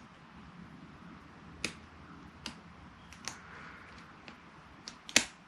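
A snap ring being worked into its groove in a 54mm centrifugal clutch kit with snap-ring pliers: about six sharp metallic clicks at uneven intervals, the loudest near the end.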